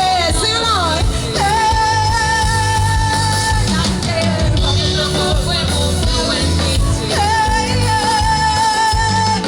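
Live pop music over a festival sound system: a heavy bass beat with a voice singing, holding one long note about a second and a half in and another near the end.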